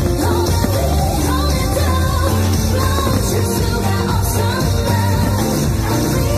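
Loud music with a singing voice over a heavy, steady bass.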